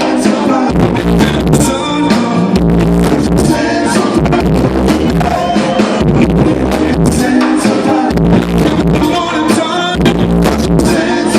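Live reggae band playing, with a sung vocal over bass, drum kit and guitar.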